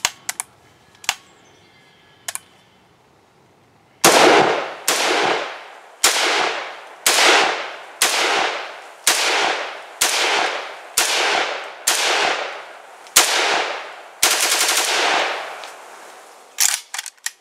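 A few faint clicks, then, about four seconds in, an ATI Galil ARM replica rifle in 5.56 NATO fires about a dozen shots in steady semi-automatic succession, roughly one a second. Each shot has a trailing echo.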